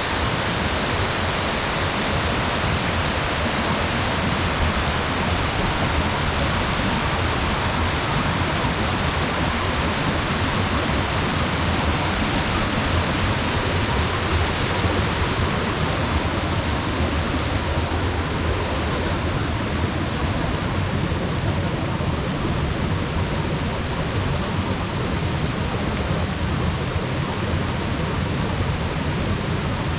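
Steady rushing water from a waterfall and the rocky rapids of the brook below it, an even, unbroken hiss.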